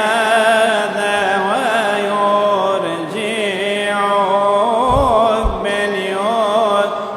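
Solo male voice singing a Coptic madeeh, an Arabic praise hymn, in long melismatic lines with wavering ornaments, over a steady held low note. Two short low thumps about five seconds in.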